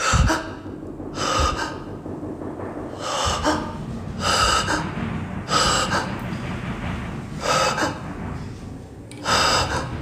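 A man breathing heavily close to the microphone: about seven loud breaths, one every second or two.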